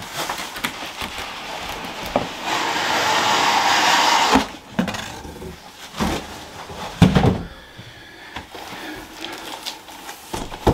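Cardboard boxes handled on a countertop. A long scrape of cardboard sliding against cardboard builds for about two seconds, then come several thumps as the boxes are set down and moved, the loudest about seven seconds in.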